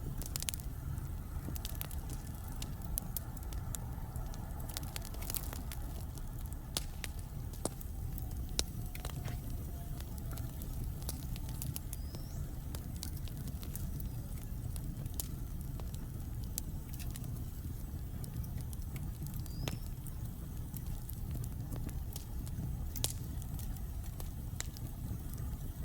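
Logs burning in a fireplace: a steady low rumble of flames with scattered sharp crackles and pops throughout. Two brief high whistles sound from the wood, about halfway through and again a few seconds later.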